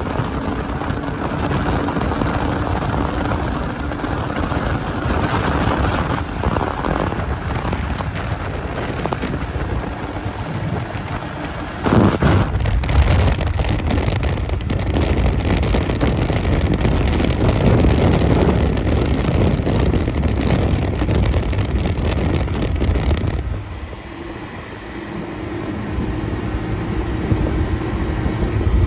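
Turbocharged snowmobile running along a trail, with wind on the microphone. About twelve seconds in it gets suddenly louder, eases off briefly near the twenty-four-second mark, then picks back up.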